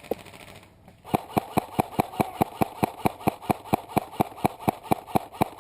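Airsoft rifle firing a rapid, evenly spaced string of about two dozen shots, about five a second, each a sharp crack with a short ring; a single click comes just before the string begins.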